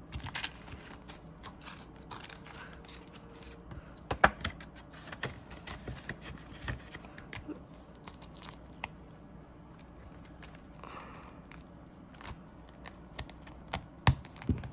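Paper bills and clear plastic binder pockets being handled: soft rustling and crinkling with scattered sharp clicks and taps, the loudest about four seconds in and again near the end.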